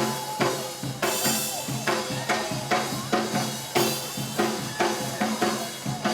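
Music with a steady drum-kit beat, with pitched instruments playing over it.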